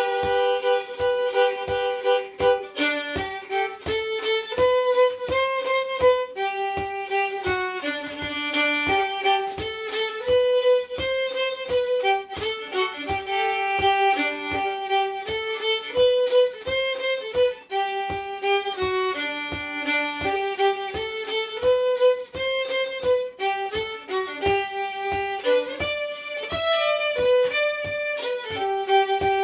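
A solo old-time fiddle in standard G-D-A-E tuning plays a tune in G slowly and simply, with held, bowed notes stepping up and down, over an even tap about twice a second.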